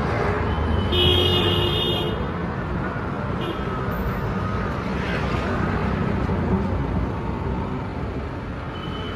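Road traffic running, with engine noise throughout, and a vehicle horn tooting for about a second, a second into the sound.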